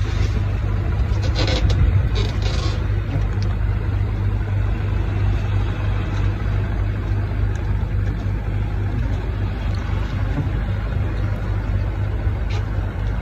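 An engine running steadily with a low hum, with a couple of short clicks about two seconds in.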